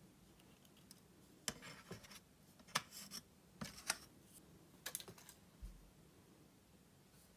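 Light clicks and short scrapes of an old metal watercolour tin and a craft knife being handled, in several small clusters, then a soft thump near the end as the tin is set down turned round.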